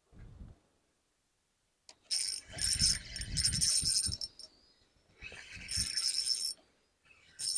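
Fishing reel whirring and clicking in three bursts as a small fish is played on the line.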